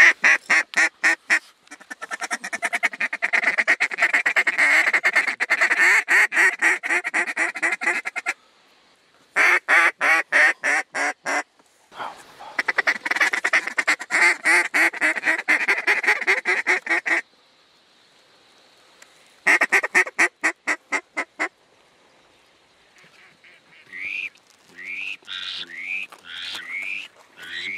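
Mallard duck call blown in runs of fast, even clucking chatter and shorter runs of quacks, with brief pauses between them. A few softer rising quacking notes follow near the end.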